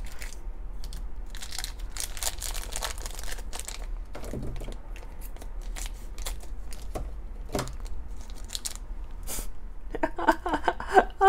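Crinkling and rustling of a small shiny plastic blind-bag packet being handled and snipped open with scissors, with light clicks and taps from a tiny cardboard box.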